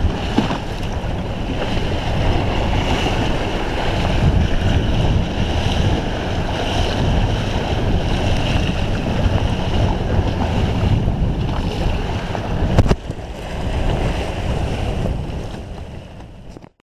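Wind buffeting the microphone and waves splashing against the hull of a small wooden Mirror sailing dinghy under way in choppy water, with a sharp knock about two-thirds of the way through. The sound cuts off abruptly just before the end.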